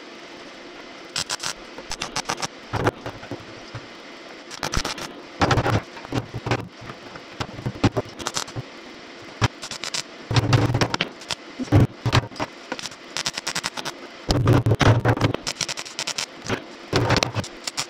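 Electric arc welding on a rusty steel tractor fuel tank: a series of irregular crackling weld bursts, most under a second long, with a few longer runs of a second or two.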